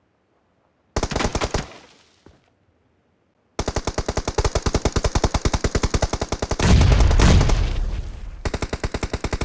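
Automatic gunfire in a shooter video game. A short burst comes about a second in, and a long sustained burst at about ten shots a second starts a few seconds later. A heavy deep boom sounds over the firing partway through the long burst.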